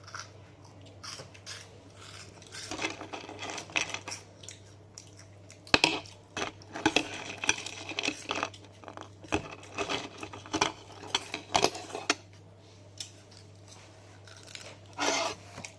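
Spoon clinking and scraping against a bowl in irregular bursts of sharp clicks, mixed with the rustle of dry puffed snacks.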